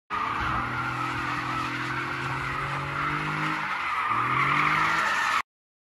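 Car engine held at high revs while the tyres squeal in a burnout. The revs dip about four seconds in and climb again, and the sound cuts off suddenly.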